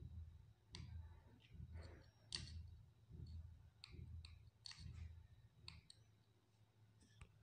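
Faint clicks of a W1209 thermostat module's small push buttons, pressed one at a time about a second apart, stepping through its settings menu.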